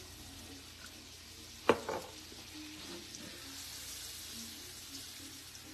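Almond-flour-breaded chicken pieces searing in butter in a hot skillet: a steady sizzle, with one sharp knock about two seconds in.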